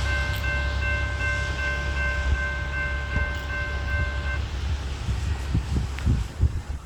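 Amtrak passenger train's horn held as one long steady chord over the low rumble of the train, cutting off about four and a half seconds in. The train keeps rumbling past, with a few low thumps near the end.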